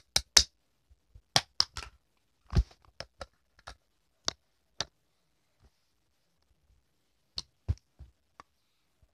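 Plastic toy cookware being handled: a toy pot and its pieces knocking and clicking against each other and the surface in irregular sharp taps, with a quiet pause in the middle.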